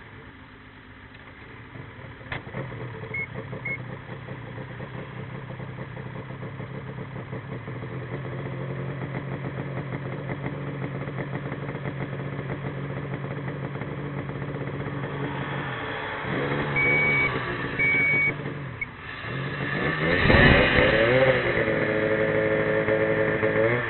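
Snowmobile engine growing slowly louder as it approaches, then revving and passing close by about 20 seconds in, its pitch swinging as it goes past and the snow spraying, before it settles to a steady run.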